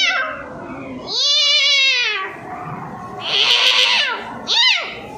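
A series of meows: a long wavering meow about a second in, a higher strained one after it, then short meows that rise and fall in pitch.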